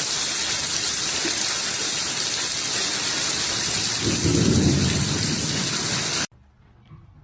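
Heavy rain with a low rumble of thunder about four seconds in; the sound cuts off suddenly near the end.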